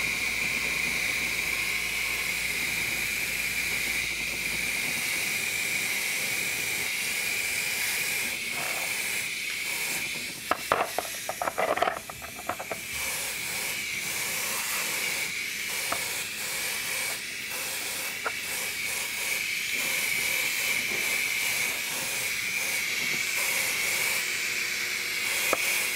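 Airbrush hissing steadily as it sprays paint. About halfway through the spraying stops briefly, with a few clicks and knocks, then resumes.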